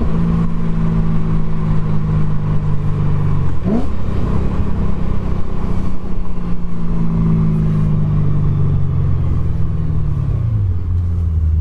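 BMW E92 M3's 4.0-litre V8 breathing through American Racing headers, heard from inside the cabin while driving at steady revs. Near the end the engine note falls and settles into a lower drone as the revs drop.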